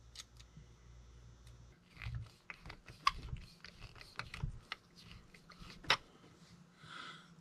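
Faint, irregular small clicks and scrapes of metal parts being handled as a screwdriver works the spring and screw of a Singer 500A sewing machine's bobbin winder, with one sharper click about six seconds in.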